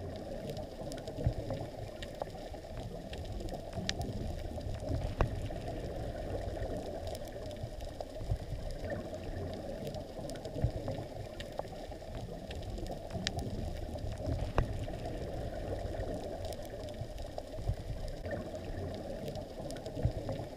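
Underwater ambience recorded through a camera's housing: a steady, muffled low rushing, with scattered sharp clicks every second or so.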